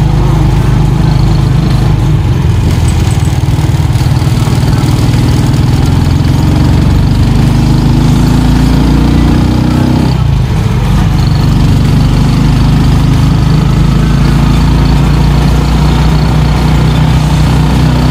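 Vehicle engine running loudly, heard from on board while travelling. Its pitch rises steadily for a few seconds about a third of the way in, then drops suddenly, as at a gear change, before settling back into a steady drone.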